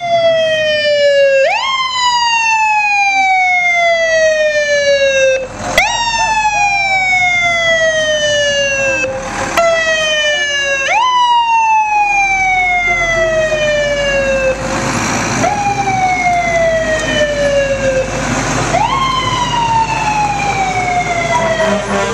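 Fire engine siren wailing in repeated cycles, each a quick rise in pitch followed by a long, slow fall, starting again every few seconds.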